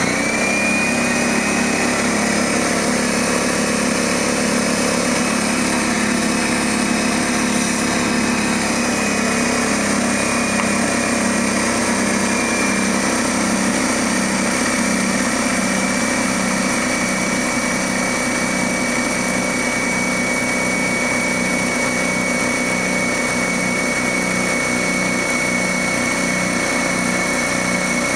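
Dewalt D55146 air compressor's electric motor and pump running steadily, filling the tank with air. A high whine is held steady over a low hum that pulses about once a second.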